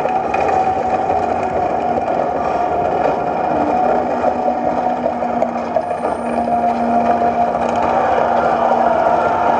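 Ambient soundtrack of an outdoor sound-and-light show played over loudspeakers: a steady drone of held tones over a low wash of sound, with no beat.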